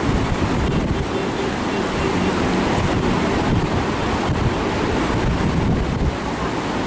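Whitewater river rushing steadily, with wind buffeting the microphone.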